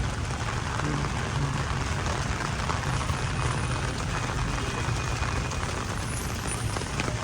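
Heavy rain falling steadily, with a motor vehicle's engine running low underneath.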